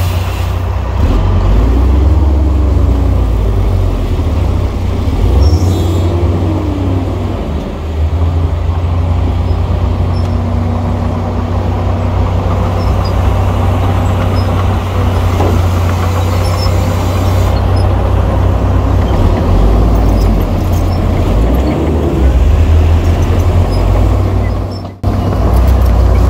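Heavy diesel earthmoving machinery running under load: a deep, steady engine rumble whose revs rise and fall twice in the first several seconds. The sound breaks off briefly near the end.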